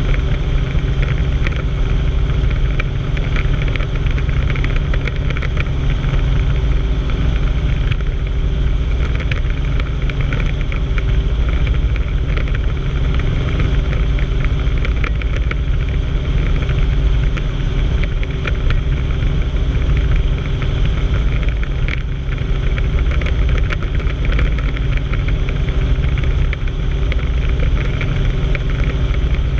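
Light helicopter in level flight, heard from inside the cabin: a steady engine and main-rotor drone with a fast, even beat from the blades.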